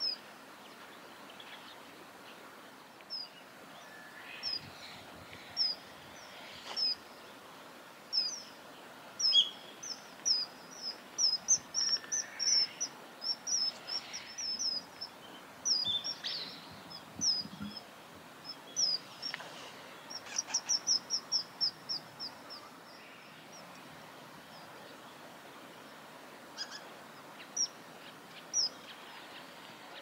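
Common kingfishers calling: short, sharp, high-pitched whistled notes, scattered at first, busiest in the middle with a quick run of about seven calls a second around twenty seconds in, then thinning out.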